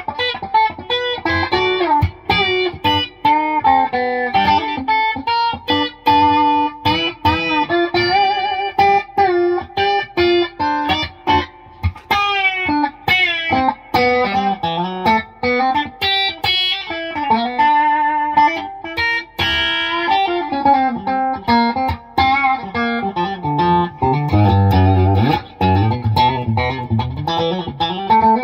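Telecaster-style electric guitar played solo in a country chicken-pickin' style: quick single-note licks with string bends, and a few low bass-string notes near the end.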